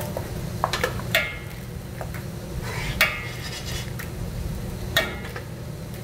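Metal spatula scraping and clinking against a flat-top steel griddle as a sheet of egg omelette is rolled up. There are sharp metallic scrapes with a short ring about a second in, then near 3 s and near 5 s, over a steady low hum.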